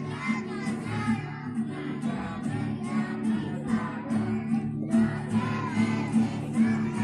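A group of young children singing a song in German together over a musical accompaniment, with a short break between lines about five seconds in.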